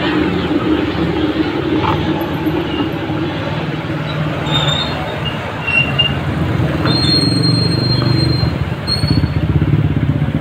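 Vehicle engines running steadily in slow street traffic, from the rider's own motorcycle and a jeepney close alongside. A few short high squeals come in the middle, with a thin high whine a little later.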